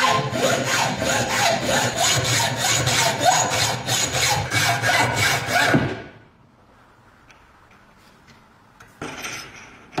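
Hand hacksaw cutting through a metal rod clamped in a vise, about three strokes a second, stopping about six seconds in. Afterwards a few faint clicks and a brief scuff of handling near the end.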